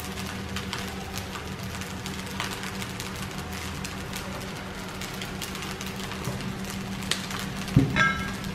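Rice frying in an aluminium wok: a steady sizzle and crackle over a constant low hum, with scattered light clicks. Near the end comes a knock, then a short metallic ring as the metal spatula strikes the wok.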